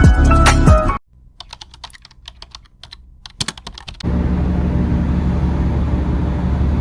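Background music cuts off about a second in, followed by soft, irregular computer keyboard key clicks for about three seconds. From about four seconds a steady vehicle noise with a low hum takes over.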